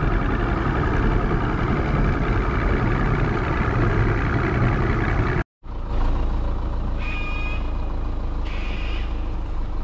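Mercury outboard motor running with a heavy low rumble. The sound cuts out abruptly about five and a half seconds in, then the engine-like rumble resumes, with a brief high-pitched tone around seven seconds in.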